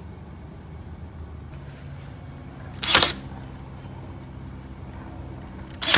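A cordless nail gun firing, driving nails through pine trim into a plywood door panel: two sharp shots about three seconds apart, the second at the very end.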